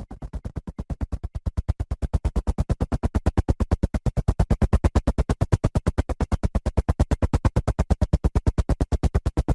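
Helicopter rotor blades chopping in a rapid, even beat of about eight thumps a second, growing louder over the first two seconds and then holding steady.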